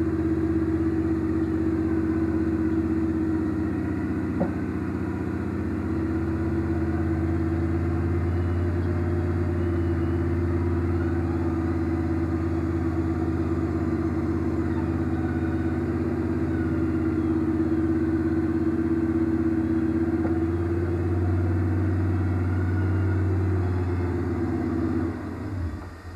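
Carbureted Chevy 350 V8 engine of a Jeep CJ running steadily at about idle, with little change in pitch; the sound drops away shortly before the end.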